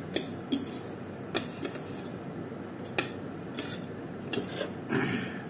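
Metal fork and spoon clinking and scraping against a plate of noodles: a string of sharp clinks, with a longer scrape near the end.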